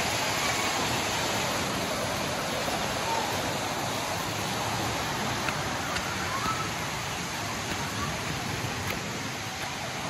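Spring water rushing over rocks, a steady wash of water noise that eases slightly towards the end.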